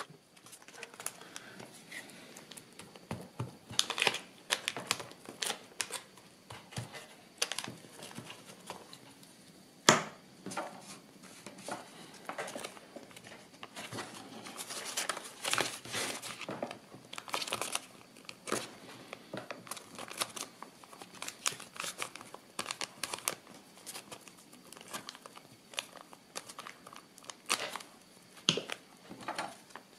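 Kraft paper and cardboard rustling and crinkling as hands fold and press a small accordion-fold paper booklet, with scattered sharp taps and clicks; the loudest tap comes about ten seconds in.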